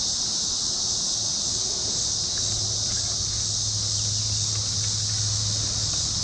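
Steady, high-pitched chorus of insects, even and unbroken, with a low steady hum coming in about two and a half seconds in.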